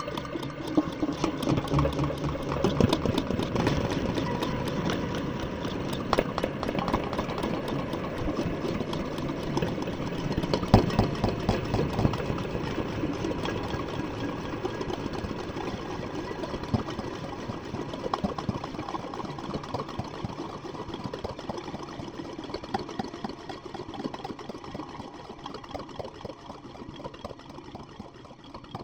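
Small metal tins with piezo contact microphones inside, rubbed and rattled to make a dense, rumbling texture full of crackles and clicks that slowly thins out toward the end.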